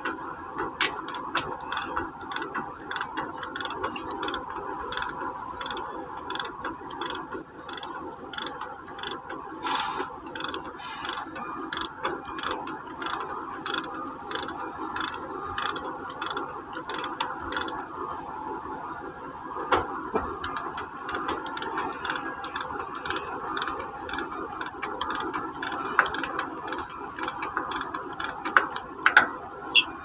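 Hand ratchet wrench clicking in a steady run as the mounting bolts of a crane's boom base pin lock cylinder are loosened, with a short pause a little past the middle.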